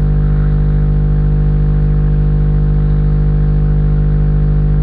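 Loud, steady electrical hum with many evenly spaced overtones, unchanging throughout.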